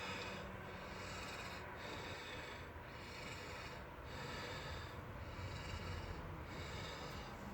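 A person's breathing close to the microphone: a rasping hiss that swells and fades about once a second.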